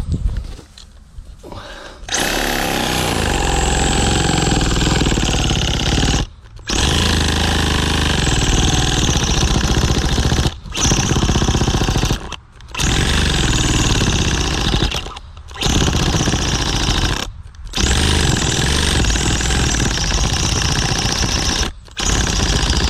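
Reciprocating saw cutting through a thick tree root in a post hole, running in a series of bursts of a few seconds each with short pauses between them.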